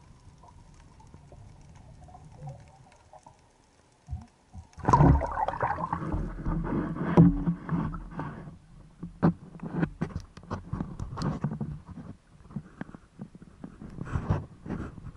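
Faint muffled underwater hush, then about five seconds in the camera breaks the surface and water splashes and sloshes around it, with irregular sharp knocks and clicks of water hitting the housing.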